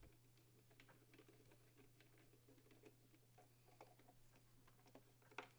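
Near silence, with faint, scattered clicks of a screwdriver turning a screw into the leaf blower's engine and handling its parts, and a faint steady hum beneath. The loudest click comes about five and a half seconds in.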